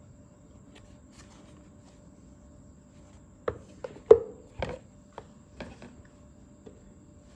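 A cluster of sharp taps and knocks, about six of them over two seconds, from objects being handled and set down. The loudest comes about halfway through and rings briefly.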